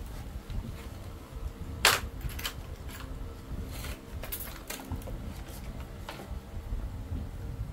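Clicks and light knocks of metal and plastic PCP air-rifle parts being handled during assembly, with one sharper clack about two seconds in.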